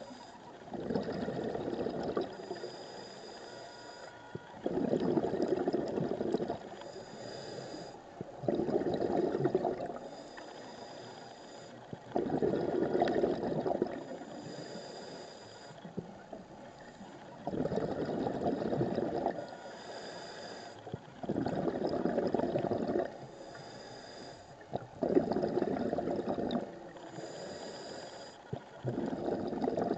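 Scuba diver breathing underwater through a regulator. A gurgling burst of exhaled bubbles comes every three to four seconds, about eight times, with a fainter hiss of inhalation between the bursts.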